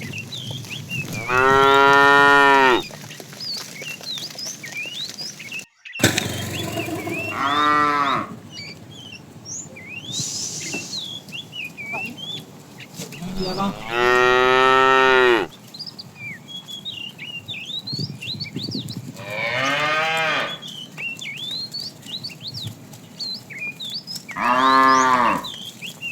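Cows mooing: five long, drawn-out moos a few seconds apart, each falling in pitch at its end.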